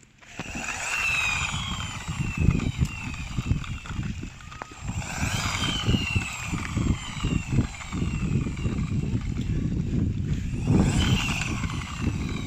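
Electric RC car's motor whining in three bursts, the pitch sliding down each time as the car slows, over a rough rumble and crackle.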